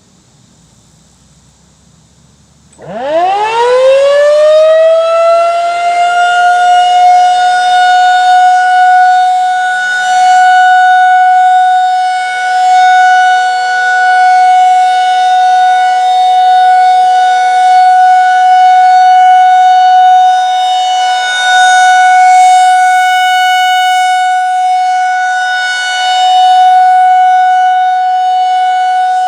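Federal Signal 2001-SRN rotating electromechanical tornado siren being tested. It starts about three seconds in with a quick rising wind-up glide, then holds a loud, steady single tone that swells and fades slowly as the rotating head sweeps around.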